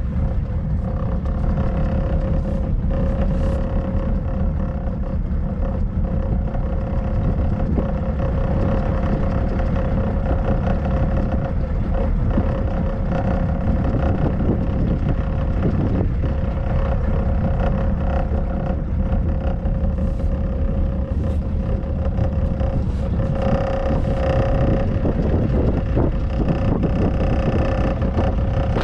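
Small pleasure boat's engine running steadily under way, a constant drone with a steady whine over it. The engine note grows brighter for a few seconds near the end.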